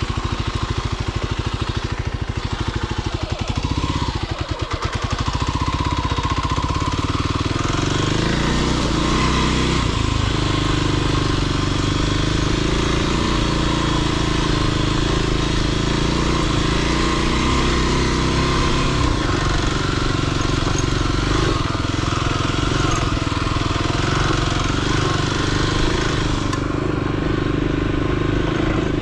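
Motorcycle engine running under way, its pitch shifting up and down with the throttle, with a brief drop in level about four seconds in.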